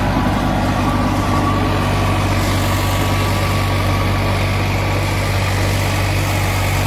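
Farmtrac 60 tractor's diesel engine running steadily under load as it pulls a Shaktiman 7-foot rotavator, whose blades churn through the soil.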